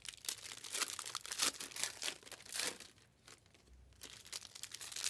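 Foil wrappers of 2023 Panini Prizm NASCAR trading-card packs crinkling as they are handled and torn open, with a quieter pause about three seconds in.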